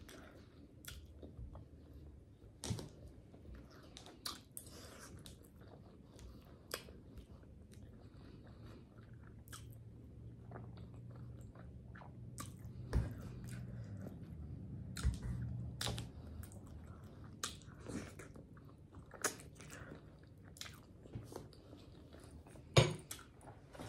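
Close-miked chewing and lip-smacking on chicken Alfredo ramen noodles and chicken: irregular wet mouth clicks, with a few louder smacks about halfway and near the end.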